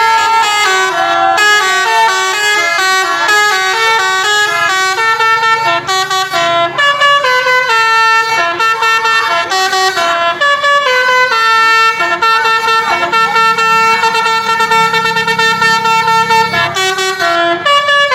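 Indonesian bus 'telolet' basuri multi-tone air horn playing a tune: a continuous run of stepped notes, each held briefly before jumping to the next, with no break.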